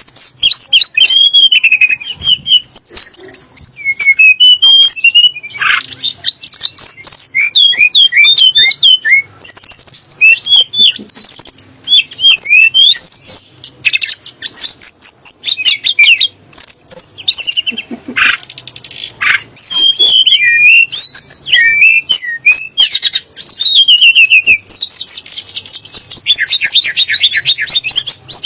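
Tledekan gunung songbird singing a fast, varied song of high whistled phrases and chirps, with a dense buzzy rattle near the end.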